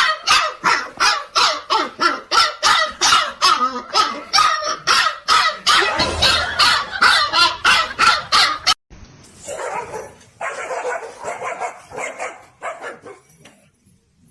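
A dog barking rapidly and steadily, about three barks a second, cutting off suddenly about nine seconds in; quieter, irregular bursts of sound follow.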